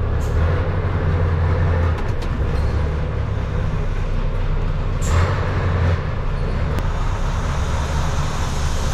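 Roller brake tester driving the wheels of an old Scania lorry: a steady heavy low drone that swells louder twice as the brakes are tested. There is a brief hiss about five seconds in.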